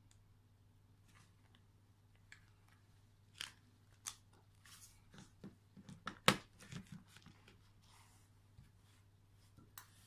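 A Casio fx-3600Pv calculator and its soft black folding case being handled and laid down on a desk mat: scattered small plastic clicks, taps and rustles. The loudest is a sharp knock about six seconds in.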